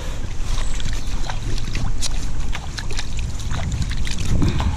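Steady low rumble of wind on the microphone, with light clicks and a small splash of water at the canal edge as wet hands are rubbed together.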